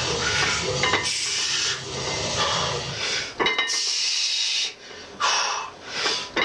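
A weightlifter breathing hard and hissing through the teeth during a set of bench press reps, in several separate bursts about half a second to a second long in the second half.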